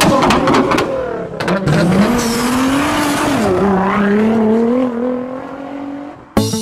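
Car engine revving, its pitch climbing, dropping about halfway through, then holding steady before fading out near the end.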